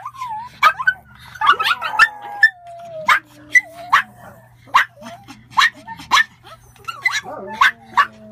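A litter of Pomeranian puppies yapping: short, high barks about two a second, overlapping at times, with a few falling whines in between.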